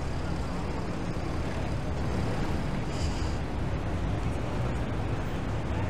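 Steady rumble of city street traffic, buses and cars running in slow traffic, with a short hiss about three seconds in.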